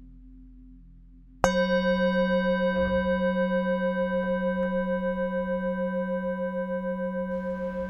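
A singing bowl struck once about a second and a half in, then ringing on with several steady overtones and a wavering, pulsing loudness as it slowly fades. Before the strike only a faint low drone is heard.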